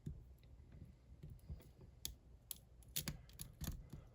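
Faint, irregular metallic clicks and ticks of a lock pick and tension tool working the pins inside a hardened steel Bell bike lock, a few sharper clicks in the second half.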